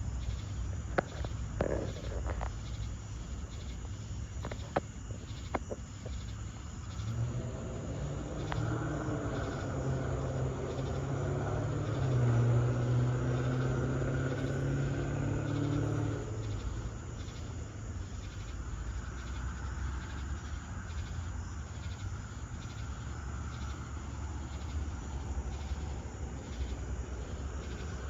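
Night insects such as crickets chirping in a steady pulsing chorus. About a quarter of the way in, a passing vehicle's engine hum swells, holds for several seconds and stops just past the middle. A few faint clicks come early on.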